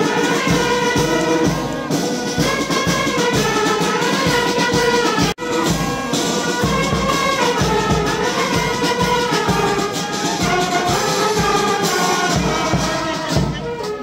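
Police brass and military band playing a march: trumpets, saxophones and clarinets over a steady bass-drum beat. The sound drops out for a split second about five seconds in.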